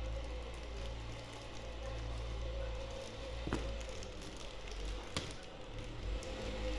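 Handling noise from hands working with the packaging and jewellery, with two sharp clicks about three and a half and five seconds in, over a steady low hum.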